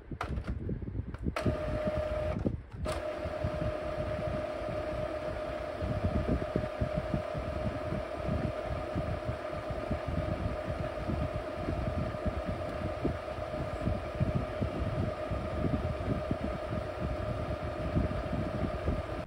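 Epson L3216 EcoTank printer running its initial ink charge: a steady mechanical hum with a constant whine that starts about a second in, dropping out briefly just after.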